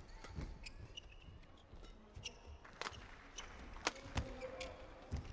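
Badminton rally: a string of sharp racket strikes on the shuttlecock, the loudest about three to four seconds in, with players' shoes squeaking on the court mat between shots.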